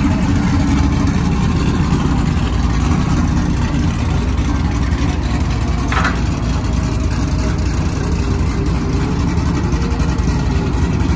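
Chevrolet Silverado pickup's 4.8-litre V8 running steadily at idle through a freshly fitted 3-inch Magnaflow bullet muffler, a low, even rumble. A short high-pitched chirp cuts through about six seconds in.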